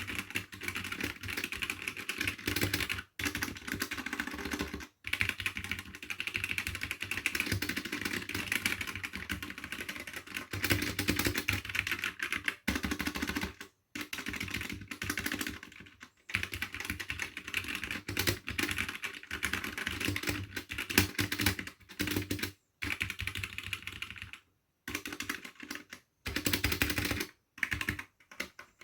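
Typing sound test on a Havit KB255GCM 60% mechanical keyboard with red (linear) switches: fast, continuous clacking of plastic keycaps, stopping briefly every few seconds.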